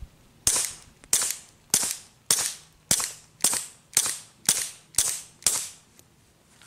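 A suppressed Taurus TX22 .22 LR pistol fires a rapid string of about ten shots, roughly two a second. The rounds are CCI Quiet Semi-Auto subsonic ammunition, and each shot is a short, quiet crack with a brief tail.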